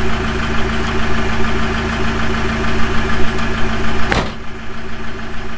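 Iveco Daily van's diesel engine idling steadily with a newly fitted turbocharger. A sharp click comes about four seconds in, after which the deep rumble falls away.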